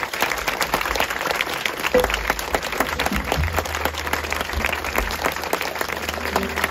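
Audience applauding after a song, dense steady clapping. A low steady hum comes in about three and a half seconds in.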